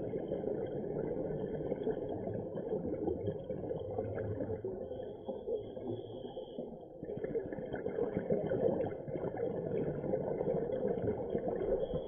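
Steady muffled underwater rumble heard through an action camera's waterproof housing during a scuba dive, continuous and without pauses.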